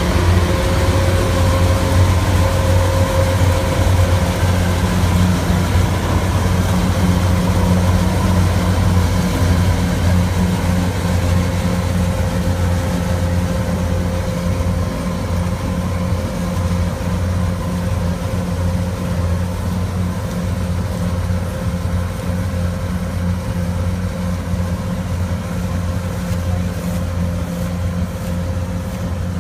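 A rice combine harvester's engine running steadily: a continuous low drone with a steady whine above it.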